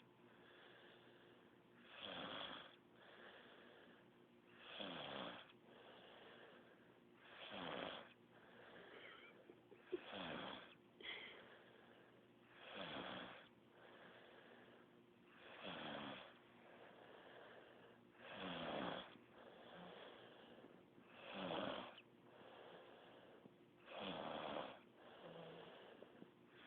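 A sleeping man snoring: regular rasping snores, about one every three seconds, each with a buzz that drops slightly in pitch.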